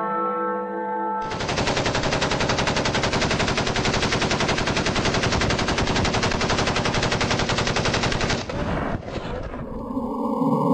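Rapid, unbroken machine-gun fire lasting about seven seconds, starting about a second in after a short held chord of steady tones and stopping a little before the end.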